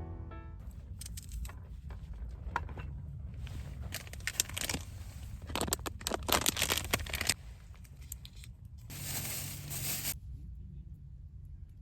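Rustling and crinkling as things are handled by hand, with scattered small clicks and a longer rustle near the end.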